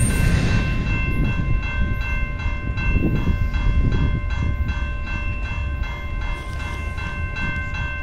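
Grade-crossing warning bell ringing in an even, steady rhythm while the flashers are still active, over a low rumble of the train.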